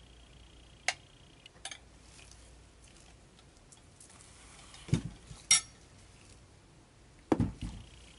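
Scattered clinks and knocks of soap-making cups and utensils being handled and set down on a table, with duller thuds about five and seven and a half seconds in and the sharpest clink just after the first thud.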